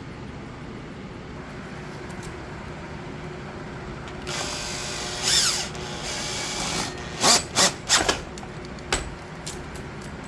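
A power drill running for a couple of seconds, its motor pitch rising as it drives screws back into the trimmer's housing, followed by three or four sharp clicks and knocks and one more shortly after.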